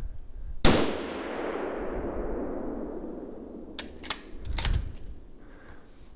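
A single hunting rifle shot, its report rolling away through the woods in a long echo. About three seconds later come a few quick sharp clicks and a clack, the rifle's action being worked for another round.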